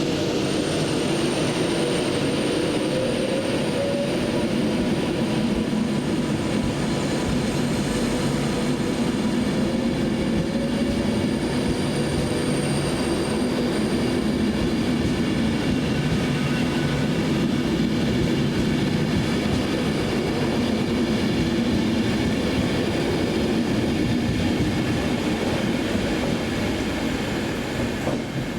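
A train running past on the line, a steady loud rumble of wheels on rail with a thin high whine in the first half, fading near the end.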